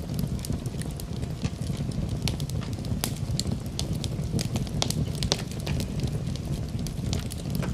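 Fireplace fire crackling: frequent sharp pops and snaps at irregular intervals over a steady low rumble of burning.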